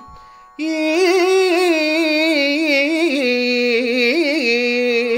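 A singer's voice in a Carnatic kriti in Kalyani raga, drawing out the vowel 'īm' with wavering gamaka ornaments after a half-second pause. The held note steps down in pitch about three seconds in.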